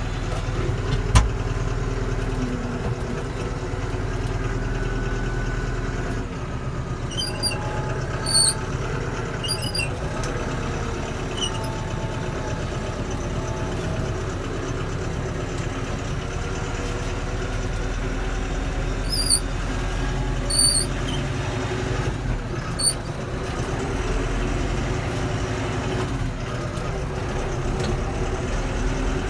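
Mahindra mPower 85P tractor's diesel engine running steadily, with two clusters of short high-pitched squeaks, about a quarter of the way in and again about two-thirds of the way in.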